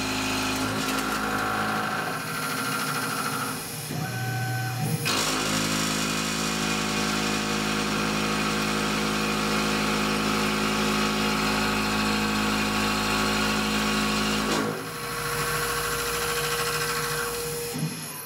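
A 38 mm insert face mill on a Tormach PCNC 1100 CNC mill cutting across 304L stainless steel: steady spindle and cutting noise with a whine, changing abruptly about four seconds in. About fifteen seconds in it drops to a quieter steady spindle hum as the cutter clears the edge of the plate.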